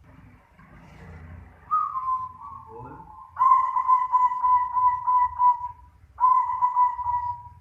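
Zebra dove (perkutut) cooing: a short note sliding down about two seconds in, then two long rapidly pulsing coos on one low pitch, the second after a brief pause.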